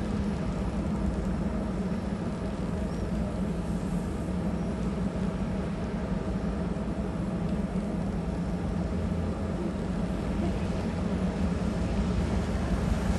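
Steady low drone of a Codecasa 51 motor yacht's diesel engines as she manoeuvres astern at close range, growing slightly louder near the end.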